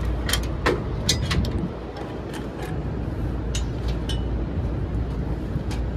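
Sharp metal clicks and clinks of safety-harness carabiners and steel railings being gripped and knocked as a worker climbs into a building-maintenance unit's platform, about nine separate strikes, one ringing briefly about four seconds in. Under them runs a steady low rumble.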